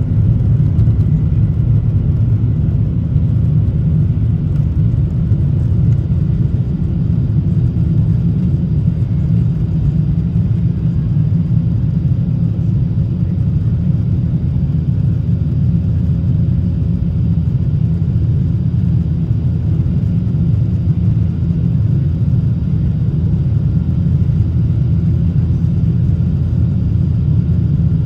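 Jet airliner's engines at takeoff thrust with rushing air, heard inside the cabin as a loud, steady low rumble through liftoff and the initial climb, with a few faint steady whines above it.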